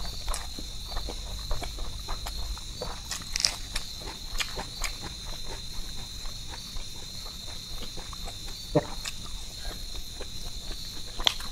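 Soft eating sounds from a person eating a rice-and-fish meal by hand: scattered chewing and mouth clicks, the sharpest about nine seconds in and near the end. Under them runs a steady high-pitched insect trill.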